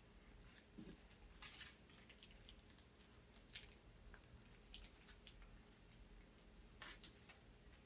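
Near silence with faint eating sounds: soft chewing and a few scattered small clicks as a steak and cheese sub is eaten.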